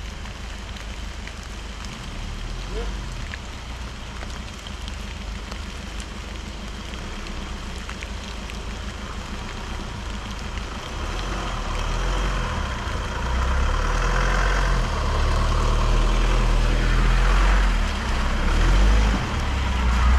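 Mercedes-Benz Sprinter van's engine running as the van drives slowly along a wet, leaf-covered woodland track, growing louder from about halfway through as it approaches and passes close by near the end.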